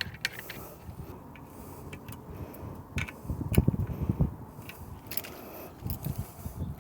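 Keys on a keychain jangling, with scattered small metal clicks and knocks as a key is worked as a makeshift screwdriver on the handlebar parts.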